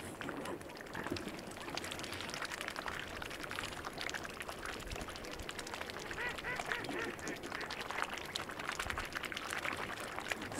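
Mute swans feeding in shallow water, their bills dabbling and splashing with many small clicks and splashes, and a few short calls about six to seven seconds in.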